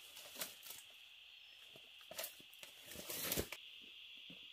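A few brief rustling, tearing sounds, the longest and loudest about three seconds in, over a steady high-pitched insect drone.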